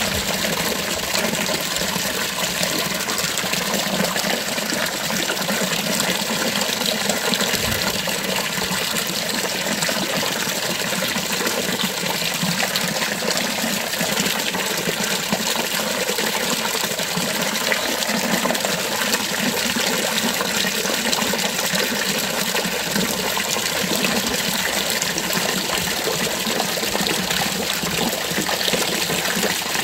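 Water from a stone sculpture fountain splashing steadily into its basin.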